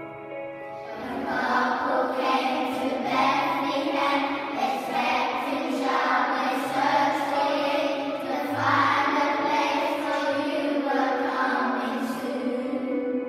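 Children's choir singing a Christmas carol together over an instrumental accompaniment. The voices come in about a second in and stop just before the end, leaving the accompaniment playing.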